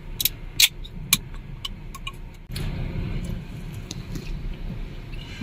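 Inside a car: a few sharp clicks and knocks in the first half, then a steady low rumble that starts suddenly about halfway through and keeps on.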